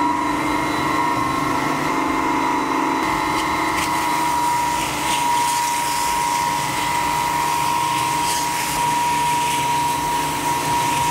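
Industrial long-belt sander running with a steady hum and whine while its 60-grit belt sands a wooden board. The belt is pressed down by a sanding shoe pushed along by hand, and from about four seconds in a scratchy hiss of abrasion rises over the motor.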